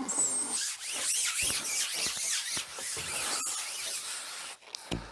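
Continuous rubbing and hissing of a long carbon fishing pole being slid out, sections running through the hands and over the support.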